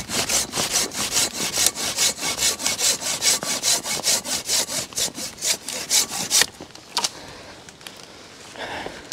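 Hand saw cutting through a light, dry-ish dead branch for firewood, in fast, even strokes of about four a second. The sawing stops about six and a half seconds in, followed by a single small knock.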